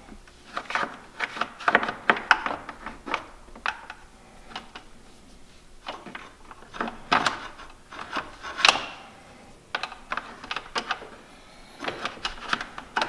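Irregular clicks, taps and rubbing as a wire is handled and fed behind a UTV's plastic front bumper and skid plate, with one sharper click about two-thirds of the way through.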